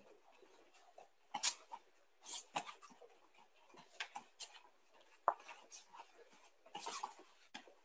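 Bare feet stepping, pivoting and scuffing on judo mats during fast turn-in and turn-out footwork: irregular short thuds and rubs, the loudest about a second and a half in and again near the end.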